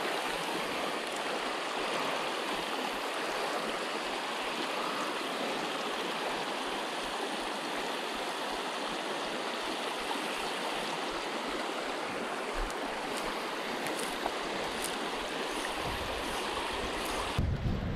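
Shallow river water rushing steadily over rocky shoals and riffles. A low rumble comes in near the end.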